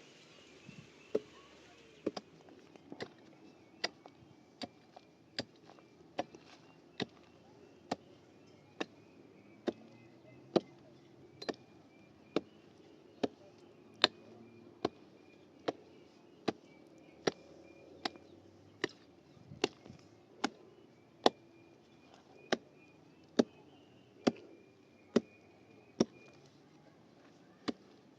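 Repeated sharp blows of a hand tool striking, in a steady working rhythm of a little more than one blow a second.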